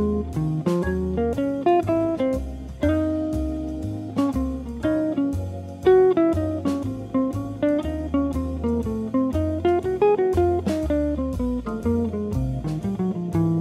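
Gibson ES-125 hollow-body electric guitar played solo in a jazz style, with a steadily moving bass line under chords and melody notes.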